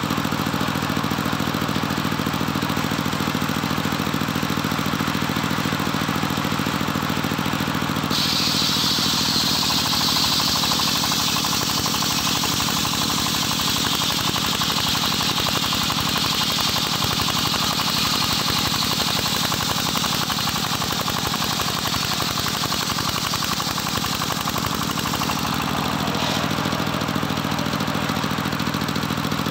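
Engine of a homemade circular sawmill running steadily. About eight seconds in, the big blade bites into a johar wood beam and a high cutting whine rides over the engine for some eighteen seconds, the engine note sinking under the load. The whine stops a few seconds before the end as the cut comes through.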